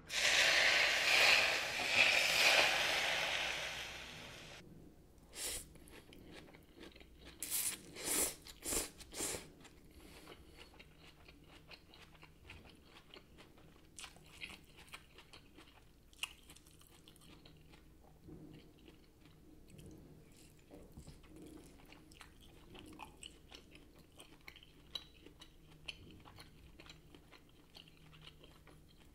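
Hot oil poured over chili flakes on shredded potatoes sizzles loudly for about four seconds and fades. Then close chewing and crunching while eating, with a few louder clicks and crunches between about five and nine seconds in.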